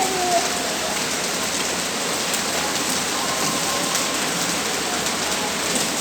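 Steady rain falling and pattering on surfaces, an even hiss.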